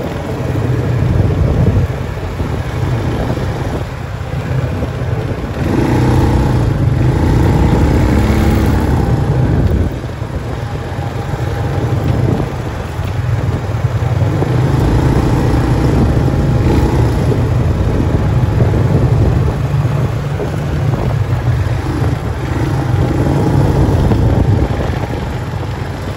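Off-road vehicle engine running at a steady cruise on a gravel road, with a constant low rumble of engine, tyres and wind.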